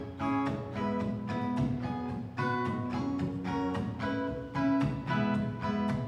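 Acoustic guitar strummed in a steady rhythm of about two or three strums a second, the chords changing every so often: the instrumental opening of a song before the singing comes in.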